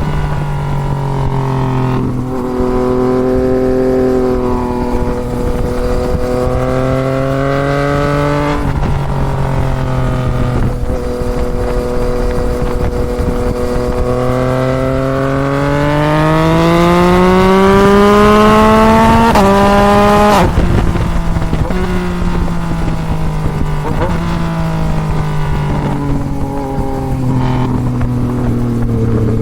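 2024 Yamaha MT-09's three-cylinder engine through a Toce full exhaust, ridden hard on a mountain road. The engine note climbs and falls as the rider works the throttle and gears, with brief dips at the shifts. The longest and loudest pull builds for several seconds before the pitch drops sharply about twenty seconds in. Wind rumble runs underneath.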